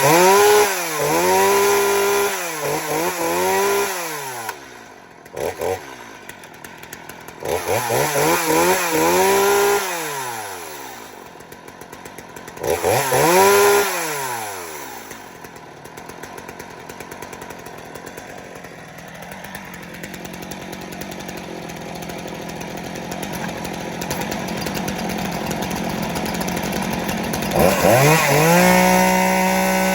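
Stihl MS250 two-stroke chainsaw revved up and down in repeated throttle blips, settling to idle about halfway through, then held at high revs near the end.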